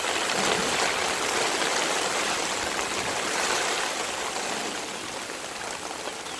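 Heavy rain pouring down, a dense steady hiss heard from under a tarp roof, easing slightly near the end.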